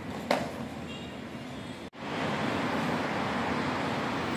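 Steady city street noise with traffic in the background. About a third of a second in there is one brief sharp knock. Just before halfway the sound drops out for an instant and comes back a little louder.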